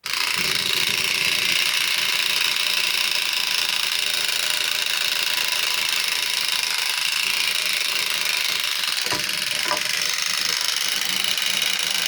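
Clockwork mechanism of an Arnold Mac 700 wind-up toy motorcycle running, its built-in noisemaker giving a steady high buzzing rattle made to imitate a motorcycle engine. It starts abruptly, and two faint clicks come near the end.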